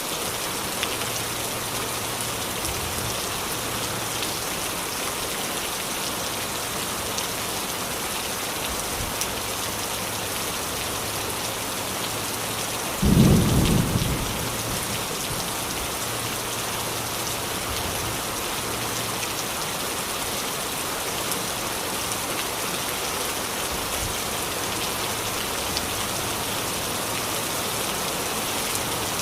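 Heavy rain falling steadily, with one sudden loud clap of thunder about halfway through that dies away within a second or two.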